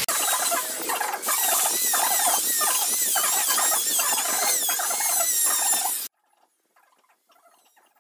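Electric rotary grinder with a carving burr cutting into wood: a high, wavering whine over a rhythmic chatter of strokes, which cuts off suddenly about six seconds in. After that only faint scraping ticks of a hand carving tool are left.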